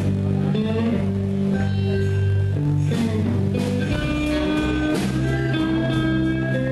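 Blues band playing live: electric guitar over bass and drums, at a slow, steady tempo.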